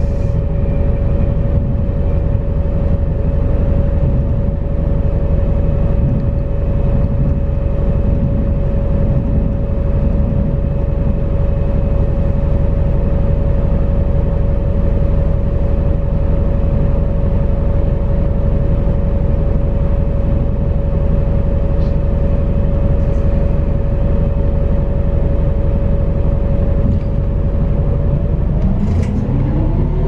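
Cabin noise of a MAZ-206.945 city bus running at a steady speed: a low drivetrain rumble with one steady whine. Near the end the whine drops out and a new set of tones rises in pitch as the bus picks up speed.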